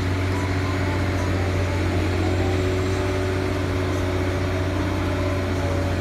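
Heavy diesel engine of a Liebherr crawler crane running at steady revs while it works a clamshell dredging bucket, a constant low hum.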